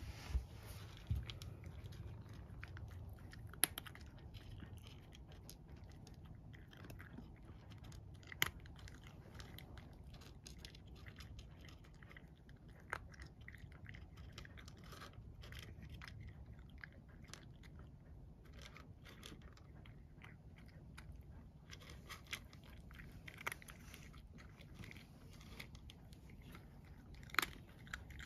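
Domestic cat crunching dry kibble: a steady run of small crunching clicks as it chews, with a few louder clicks now and then.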